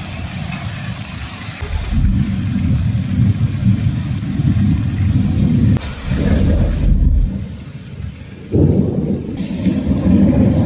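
Heavy rain pouring down, with a deep, uneven rumble that strengthens about two seconds in, drops away briefly past the middle and comes back suddenly near the end.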